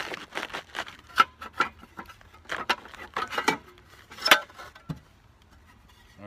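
Metal clicks and clunks of a cover being worked loose and lifted off the underside of a Honda HRU216 lawn mower by hand, with two sharper knocks, about a second in and just past four seconds.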